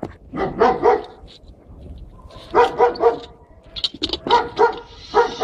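Dog barking in quick runs of three or four barks, with short pauses between the runs.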